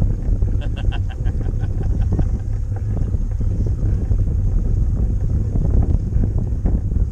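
Wind buffeting the microphone on an open boat: a steady low rumble, with a short run of quick ticks about a second in.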